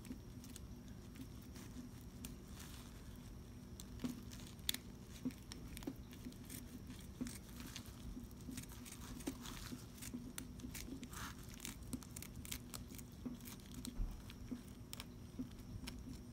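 Faint scratching and scattered small clicks of a box cutter blade slicing along the back of a bluegill, coming more often in the second half, over a low steady hum.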